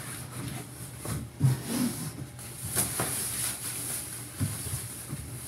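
Packaging being handled and pulled away from a keyboard during unboxing: scattered rustles and knocks, with a thump about a second and a half in.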